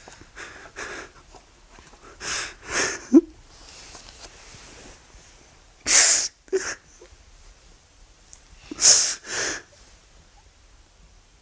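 A young man crying: sharp, wet sniffs and gasping breaths that come in three pairs a few seconds apart, with a short choked catch of the voice after the first pair.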